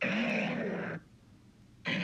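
Triceratops call sound effect: a rough, low call with an arching pitch lasting about a second, then a second call starting near the end.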